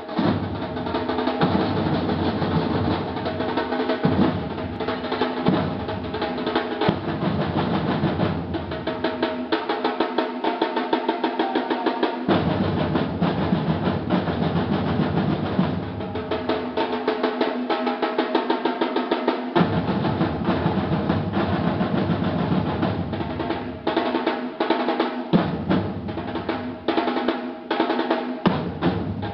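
Batucada samba drum ensemble playing a fast, dense rhythm on surdo bass drums and higher drums. The deep bass drums drop out for a few seconds several times and come back in.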